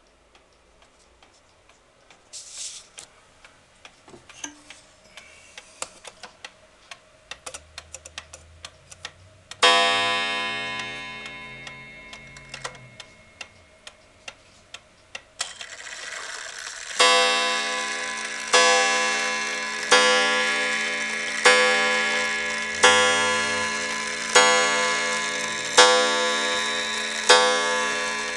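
Gilbert gingerbread shelf clock ticking while its hands are set. A single ringing strike on its coiled wire gong comes about ten seconds in. From a little past halfway the clock begins counting the hour on the gong, one stroke about every second and a half, still striking at the end.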